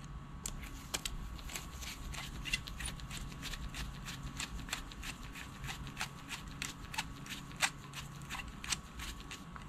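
Faint, irregular small metallic clicks and taps of a long screwdriver turning the main jet down into a small-engine carburetor body, screwed in just snug.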